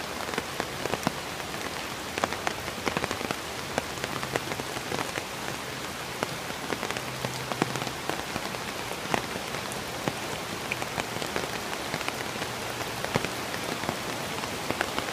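Rain falling, with many irregular sharp drop hits close by, over the steady rush of a flood-swollen river.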